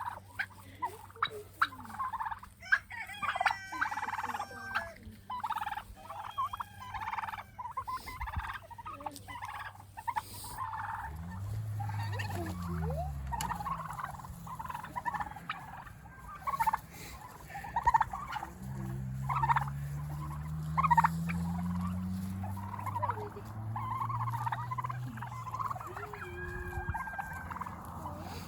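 A flock of domestic turkeys gobbling and calling, many short calls overlapping throughout. A low drone that rises and falls in pitch runs underneath from about a third of the way in to past the middle.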